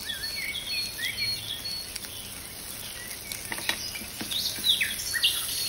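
A background track of birds chirping, in quick short calls, over butter sizzling in the pan. A few sharp clicks from the plastic spatula against the pan come about three and a half to five and a half seconds in.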